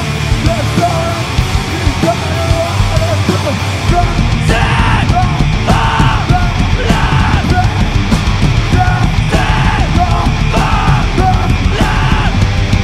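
Screamo band playing live at full volume: distorted electric guitars, bass and drums. From about four and a half seconds in, screamed vocals come in short, evenly repeated shouts over the music.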